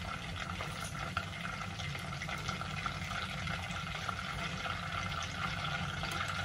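Steady soft hiss of butter melting and beginning to sizzle in a saucepan over a lit gas burner.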